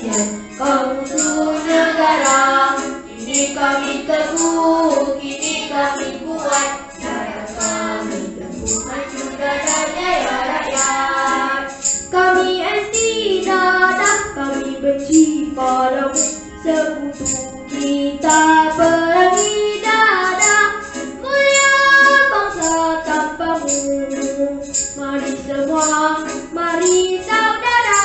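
A child sings a song into a microphone over electronic keyboard accompaniment, with a steady high percussion beat at about two strokes a second.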